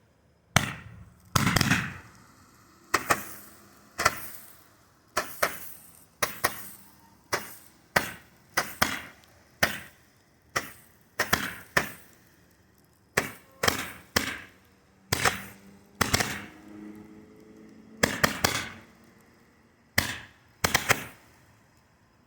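Four 10-ball Roman candles firing together: an irregular run of sharp pops, each with a short hissing tail, about one or two a second, as the coloured pearl balls are shot out of the tubes.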